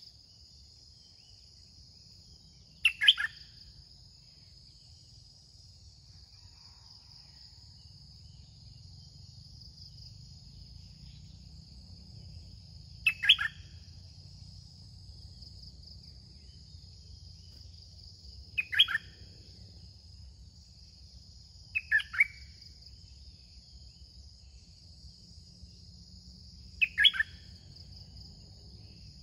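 Red-whiskered bulbul singing five short, loud phrases spaced several seconds apart, over a steady high insect drone.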